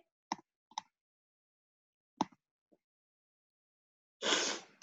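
Three short, isolated computer-mouse clicks, about a second apart and then about a second and a half apart, followed near the end by a brief, louder burst of noise lasting about half a second.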